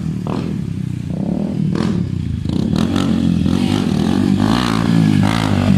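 Yamaha Sniper 150 motorcycle with an aftermarket exhaust running as it is ridden. The engine note rises and falls with the throttle and grows louder in the second half.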